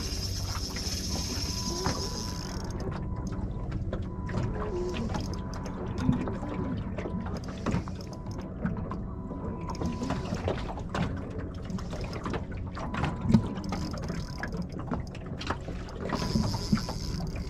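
Spinning reel working against a hooked jewfish (mulloway): the reel clicks and whirs as the line is fought. A high buzzing sits over it for the first few seconds and again near the end, and water laps against the aluminium boat hull.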